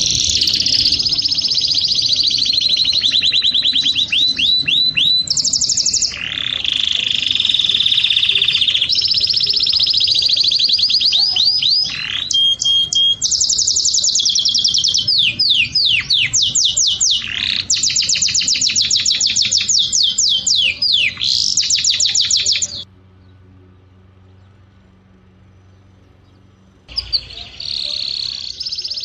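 Songbird song: rapid high trills and runs of quick down-slurred notes, almost without pause. It cuts off abruptly about 23 seconds in, leaving a faint low hum, then starts again about four seconds later and fades out.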